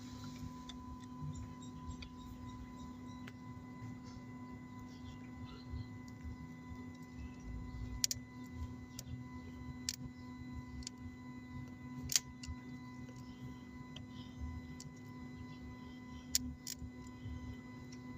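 Starter solenoid giving single sharp clicks, a few seconds apart and strongest about twelve seconds in, over a steady electrical hum, with no cranking. This is the click of a starter whose brushes are worn out.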